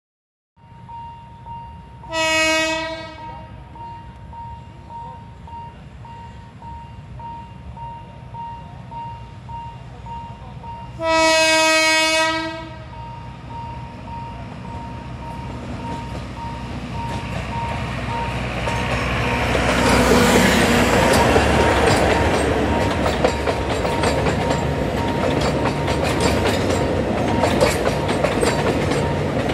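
Alishan Forest Railway diesel-hauled train sounding its horn twice, a short blast then a longer one about nine seconds later, while a level-crossing warning bell dings steadily. Then the train rolls through the crossing, getting louder, with engine hum and wheels clicking over the rail joints.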